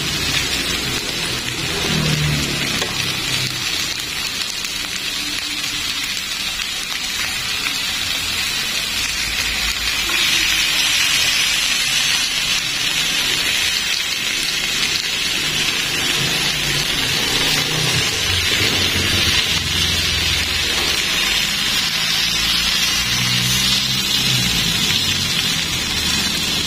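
Chicken pieces sizzling in a ridged nonstick grill pan: a steady hiss that grows louder about ten seconds in.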